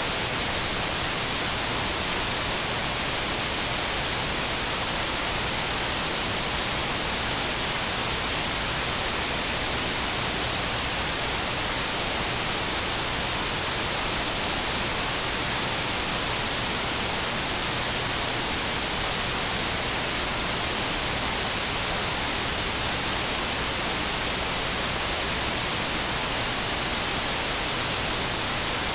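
Steady, unbroken static hiss, like white noise, strongest in the high frequencies and never changing in level.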